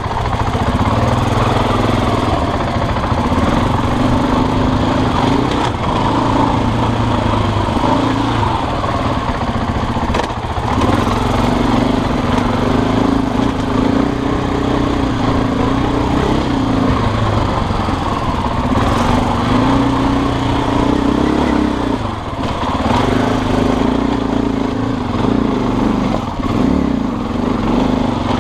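Husqvarna dirt bike engine running under way on a rough trail, its pitch stepping up and down every few seconds as the throttle is opened and rolled off.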